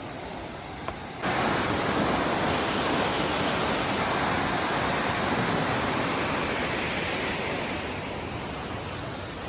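Waterfall rushing, a steady wash of falling water that suddenly gets louder about a second in and eases slightly near the end.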